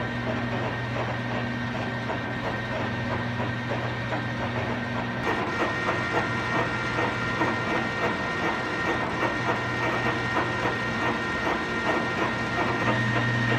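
Colchester 1400 engine lathe running under power, its gearing whirring with a fast, even clatter over a steady hum. About five seconds in the sound changes: a high whine comes up and the clatter grows denser.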